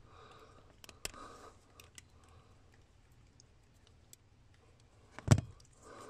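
Wire stripper working insulation off a thin blue wire: a few faint clicks and snips, then one louder sharp knock about five seconds in.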